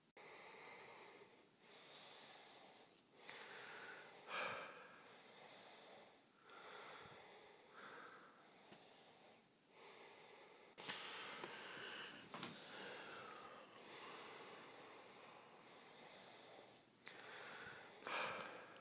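Faint, close-miked breathing: soft noisy breaths in and out in a slow, even rhythm, each about a second and a half long with short pauses between.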